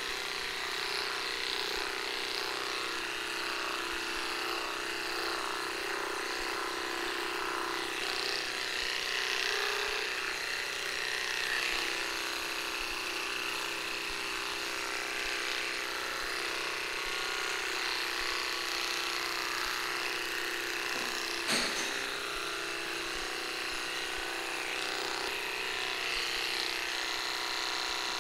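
Handheld cordless electric dog clippers running with a steady buzz while trimming a small dog's leg fur, with one brief knock about three-quarters of the way through.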